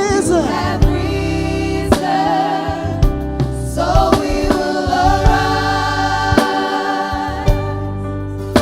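Gospel choir singing with a band, over a steady bass line and a drum stroke about once a second.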